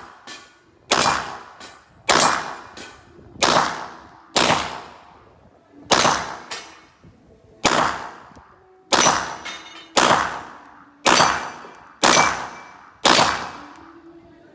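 A 9mm Glock 17 MOS pistol fired in slow, steady single shots, about eleven of them roughly a second apart, each report ringing off briefly.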